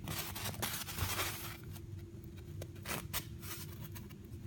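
Handling noise from a phone and its charging cable being plugged in: a scratchy rustle for about a second and a half, then a few light clicks.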